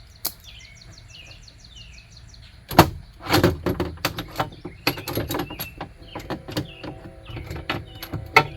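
Metal clanking and rattling as locking pliers are unclamped and worked loose from a window regulator inside an SUV door, starting with a loud clatter about three seconds in and going on in repeated knocks. A bird chirps quickly in the background during the first couple of seconds.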